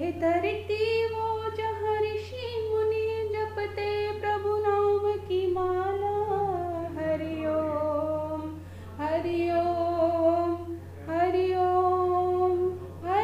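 A single female voice singing a slow Hindi patriotic song in long held notes, pausing briefly twice, over a steady low hum.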